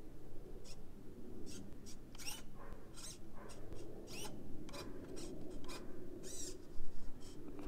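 Short whirring bursts from the corner-lift servos of a Redcat Jevries 1964 Impala RC lowrider as its corners are raised and dropped from the transmitter. There are about a dozen bursts, some rising and falling in pitch.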